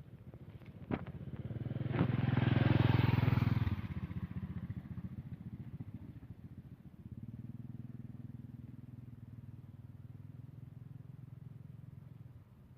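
Motorcycle engine passing close by: it grows louder, peaks about two to four seconds in, then falls back to a steady lower hum that fades near the end.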